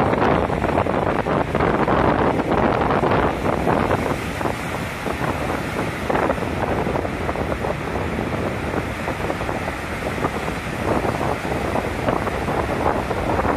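Gale-force wind buffeting the microphone over rows of storm waves breaking and washing onto a lake beach. It eases a little midway and picks up again near the end.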